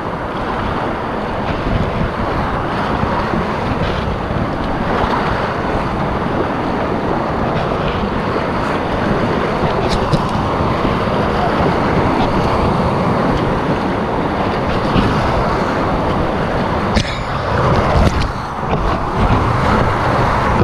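Whitewater rapids rushing and splashing around a kayak, heard close up from the boat, with a few sharp splashes near the end as spray breaks over the bow.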